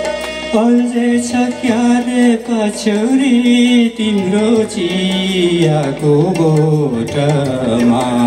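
A man singing a Nepali song into a microphone, amplified through a PA speaker, with a Yamaha electronic keyboard accompanying him. The voice comes in about half a second in with long, sliding held notes.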